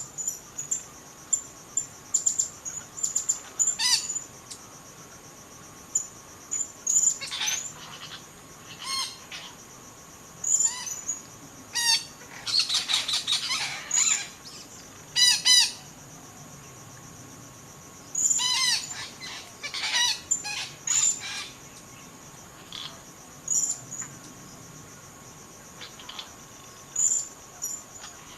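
Wild parakeets (betet) giving repeated harsh, squawking calls in short clusters of several notes, with a steady high-pitched insect trill behind them.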